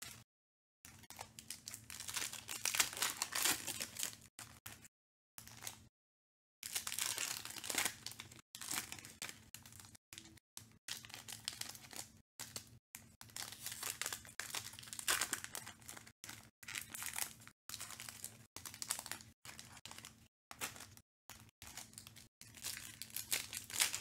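Foil Panini Select trading-card packs being torn open and crinkled by hand: an irregular run of ripping and crackling, broken by many brief dead-silent gaps.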